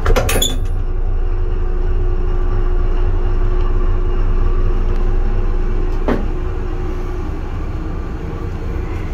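Steady low rumble and hum of a CSX ET44AH locomotive's GE GEVO-12 diesel engine, heard inside its cab. A few sharp clicks come in the first half second and a single knock about six seconds in.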